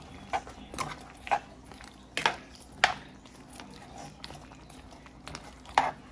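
Cooking utensils knocking and clinking against a pot of curry: about six short, irregular knocks, with a pause of a couple of seconds before the last one.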